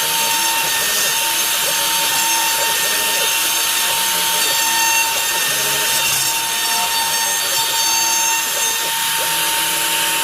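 CNC router spindle running with a steady high whine while its bit cuts through wood with a constant hiss. Lower motor tones ramp up and down in pitch every second or so as the machine moves along its toolpath.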